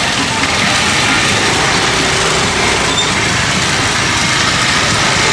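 Motorcycle engines running at low speed through a dense crowd, over a steady din of traffic.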